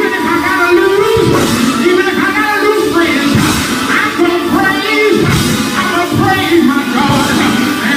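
Loud live praise music from a church band, with voices singing along.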